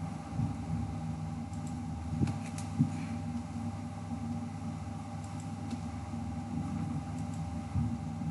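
Steady low background hum with a thin, constant higher tone, and a few faint clicks of a computer mouse.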